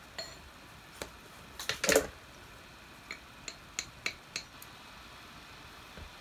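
Paintbrush clinking against a small glass jar while watered-down black acrylic paint is stirred in it: a string of sharp, light clinks, loudest in a quick cluster about two seconds in, and a soft low knock near the end.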